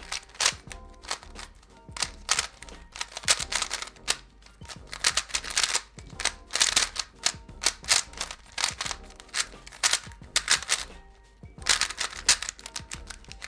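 A non-magnetic Speed Ripper speedcube being turned fast during a timed solve: rapid runs of plastic clicks and clacks as the layers snap round, with a short pause about eleven seconds in.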